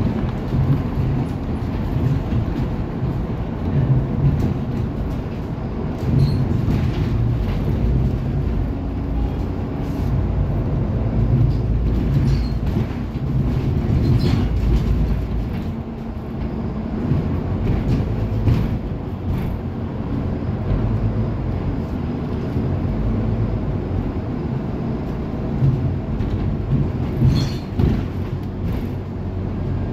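Interior noise of a Scania city bus on the move: steady engine and road rumble that swells and eases, with a few short rattles from the cabin.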